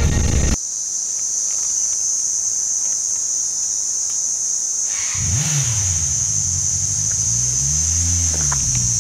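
Insects droning in one steady, high-pitched tone. From about five seconds in, a vehicle engine joins, its pitch rising and falling.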